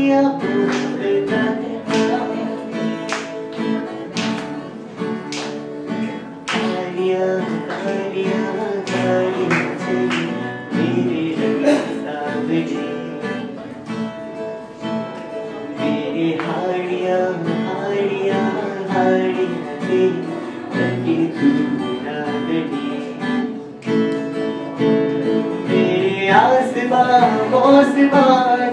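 Acoustic guitar strummed in a steady rhythm, with a man singing over it. His voice stands out most a little past halfway and near the end.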